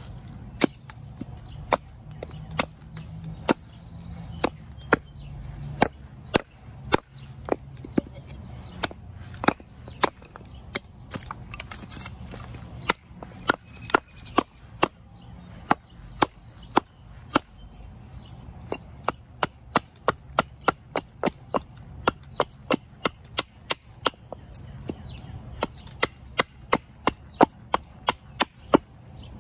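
Stihl hatchet chopping green cherry wood, roughing out a spoon blank: a long run of sharp strikes, about one or two a second, coming faster in stretches in the second half.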